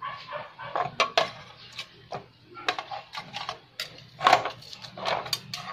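Kitchen knife and metal tongs clicking and scraping against a stainless steel tray while a steamed chicken is cut up, with irregular sharp clinks.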